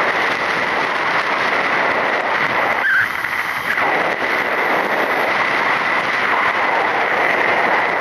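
Steady rush of wind and engine noise while riding on a moving motorcycle, easing briefly about three seconds in.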